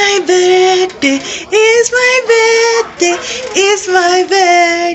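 A woman's voice singing a melody of held notes with short breaks between them.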